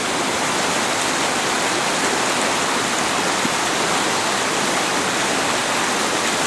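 Swollen creek running full, a steady rush of water over a streambed that is now covered.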